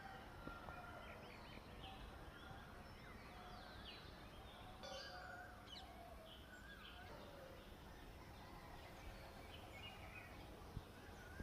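Faint chorus of birds chirping and calling, many short whistled notes overlapping, over a steady low background rumble.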